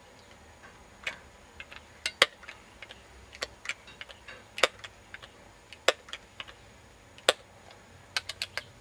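A run of about two dozen short, sharp clicks and clacks at irregular spacing, with a quick burst of four near the end. They come from handling a Crosman 1377 multi-pump air pistol between shots as it is cocked, reloaded and pumped.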